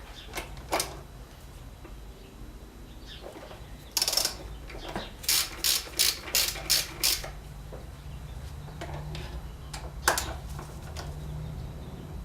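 Ratchet wrench being worked in short strokes: a longer ratcheting run about four seconds in, then six quick clicks, with a few single clicks elsewhere. A steady low hum runs underneath.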